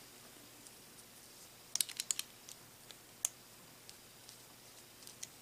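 Light, sharp clicks and taps of small plastic and metal parts being handled while fitting a power cord's plug, with a quick cluster about two seconds in and one louder click a second later.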